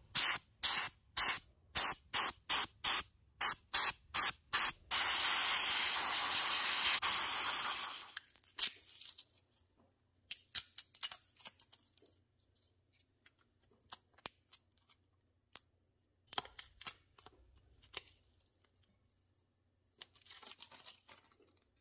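Handheld sprayer giving about a dozen short sprays, then one long spray of about three seconds. Later, masking tape and foil are peeled and crinkled off a golf iron head in small, quiet rustles and tearing sounds.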